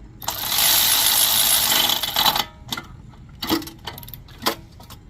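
Ratchet wrench with a deep socket clicking rapidly for about two seconds as a spark plug is tightened into a small engine, then a few separate metallic clicks.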